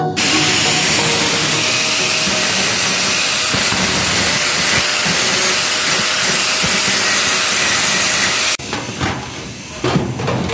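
Angle grinder cutting stainless steel sheet: a loud, steady grinding noise that stops suddenly about eight and a half seconds in, followed by a few light metal knocks.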